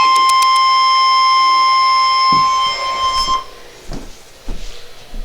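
Emergency alert tone: a steady single-pitch alarm tone just above 1 kHz, consistent with the NOAA Weather Radio 1050 Hz warning alarm that signals a warning is about to be read. It cuts off about three and a half seconds in, leaving faint hiss and a few soft low thumps.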